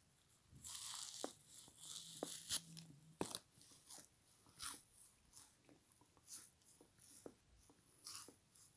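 Biting into and chewing a frozen foam kitchen sponge. A dense burst of crackly crunching starts about half a second in, with two sharp snaps near its end, then shorter crunches come at an uneven chewing rhythm.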